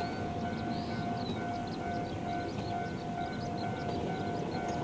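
Railway level-crossing warning bell ringing in a steady repeating ding, about two and a half strikes a second, signalling an approaching train.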